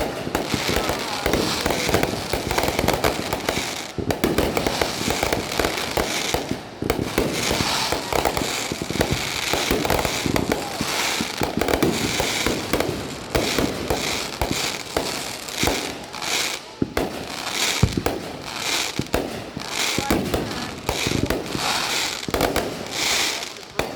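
Fireworks going off without a break: a dense run of crackling and popping, with a few louder bangs about two-thirds of the way in.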